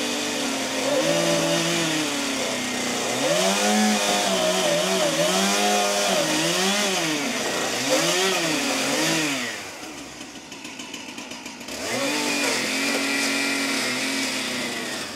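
Chainsaw running and revving, its pitch rising and dropping again and again as it is worked, easing off for about two seconds past the middle before running steadily again.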